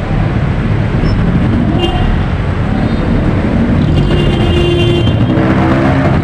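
Road traffic noise on a busy city avenue: a steady low noise of vehicle engines and tyres, with a short pitched sound in the last second.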